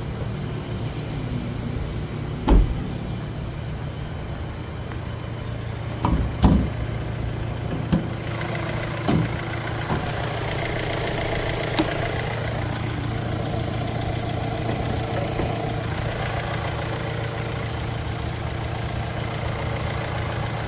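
Pulse Abarth's 1.3 turbo four-cylinder engine idling steadily, with a few short knocks and clunks: one about two and a half seconds in, two around six seconds, and more near eight and nine seconds. The engine sound gets brighter from about eight seconds in.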